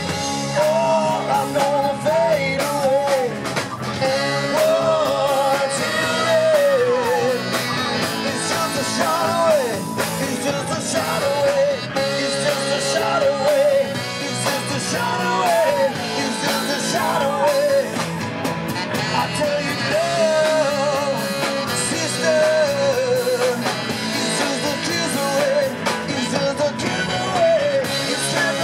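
Live rock band playing, a woman singing lead over electric guitars, bass and drums.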